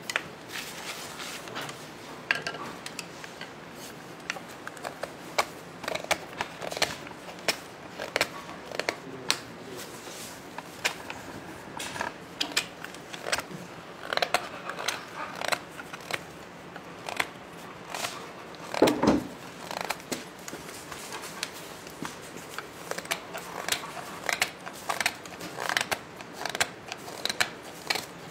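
A knife cutting and shaving green wood while a wooden spoon is carved by hand: short, crisp strokes, about one or two a second and unevenly spaced. One heavier thump comes about two-thirds of the way through.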